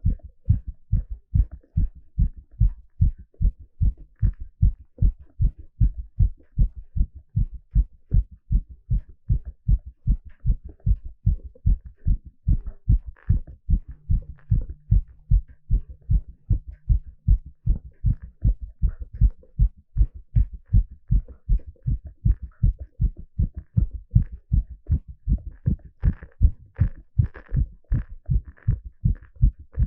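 A man's heartbeat picked up through a stethoscope: steady, regular lub-dub thumps repeating quickly.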